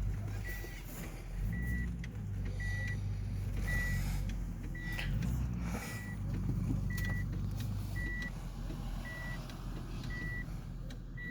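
A car's electronic warning beeper sounding a short high beep at a steady pace, about once a second, over the low rumble of the car's engine.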